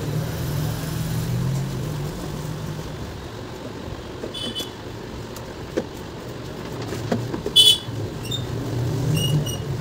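Plastic mixer-grinder body parts clicking and knocking a few times as they are handled and fitted together, the sharpest click about three-quarters of the way in, over a steady low background hum.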